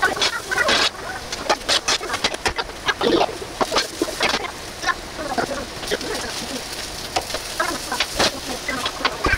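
Chunks of potato and eggplant sizzling in a frying pan, with irregular crackles and clattering taps as the pan is tossed and the pieces land back in it.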